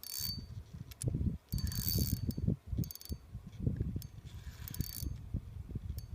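Fishing reel being cranked in bursts, its gears and line making a whirring, clicking mechanical sound, with rumbling bumps of handling noise on the microphone.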